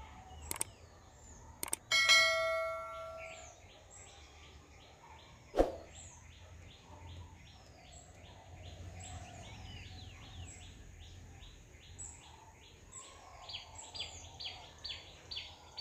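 Background bird chirping: short high chirps repeating several times a second, louder near the end, over a faint low rumble. About two seconds in comes a single bright bell-like ding that fades over a second or so, among a few sharp clicks.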